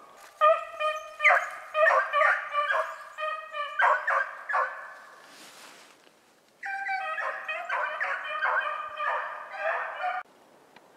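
Beagles baying while running a hare's track: loud, overlapping bursts of hound voices from more than one dog, a sign the pack is on a hot chase. The baying breaks off for about two seconds midway, then starts again.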